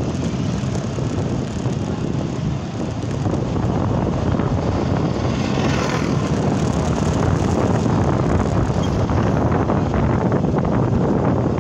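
Steady wind rush on the microphone, with engine and road noise from riding a motorbike along a rough dirt road.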